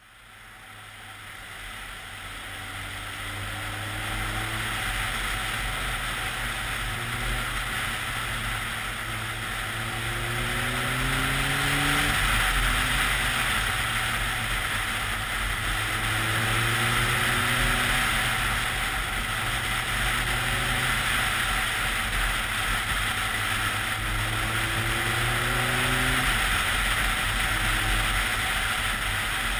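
BMW K1300S inline-four engine pulling hard, its pitch rising and then dropping back again and again as the rider shifts up through the gears. A heavy rush of wind on the helmet-mounted microphone lies over it. The sound fades in over the first few seconds.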